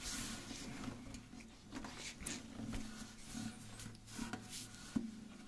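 Soft rustling and small knocks of a classical guitar being handled and settled into playing position, with no notes played; a sharper click about five seconds in.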